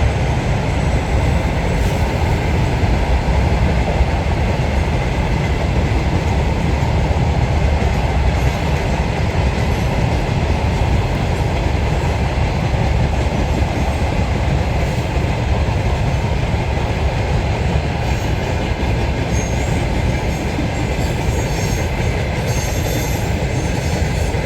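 A train's cars rolling past close by: a steady, heavy rumble of wheels on rail, with a faint high wheel squeal coming in near the end.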